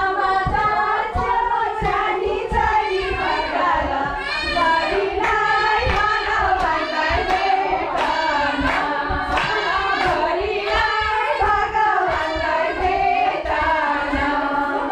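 Several voices singing together in a group, with hand clapping along.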